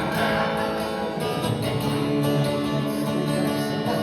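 Acoustic guitar strummed in a steady country rhythm between sung lines of a song.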